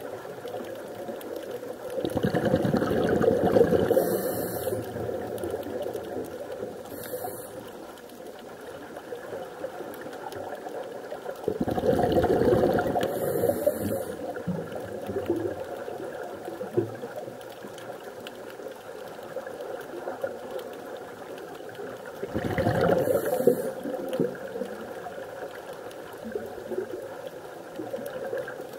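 Scuba diver breathing out through a regulator: three bubbling bursts of exhaled air, about ten seconds apart, heard underwater over a steady faint hiss.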